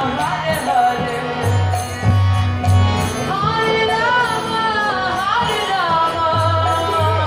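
Devotional singing accompanied by a harmonium: a voice holding long notes that slide between pitches over sustained reed chords.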